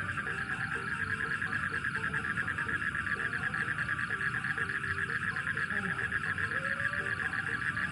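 Night chorus of frogs and insects: a steady, fast-pulsing high trill, with short lower calls here and there.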